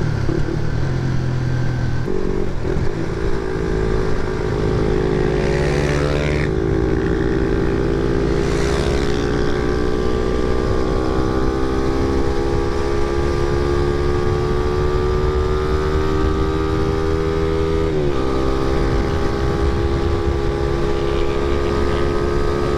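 Motorcycle engine running at riding speed under wind noise. The engine note climbs slowly, dips briefly about 18 seconds in, then holds steady. Two brief rising-and-falling hisses come about 6 and 9 seconds in.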